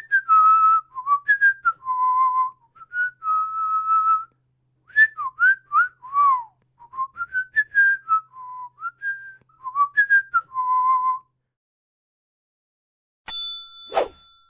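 A man whistling a melody by mouth, with held notes and quick slides between them, stopping about eleven seconds in. Near the end, a short bell-like ding rings out.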